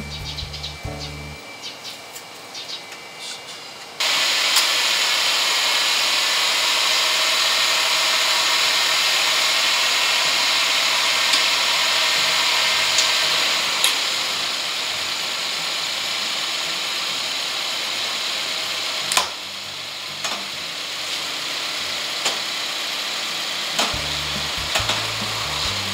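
Subaru Forester 2.0XT's turbocharged 2.0 L boxer engine started after its oil change and running: a steady noise that comes in suddenly about four seconds in, eases slightly about ten seconds later, with a few sharp clicks.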